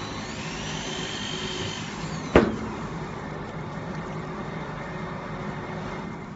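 Common rail injector test bench running: a steady mechanical hum with a faint high whine. A single sharp click cuts through about two and a half seconds in.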